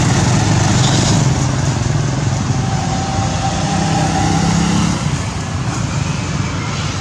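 A motor vehicle's engine running steadily with a low hum that drops away about five seconds in.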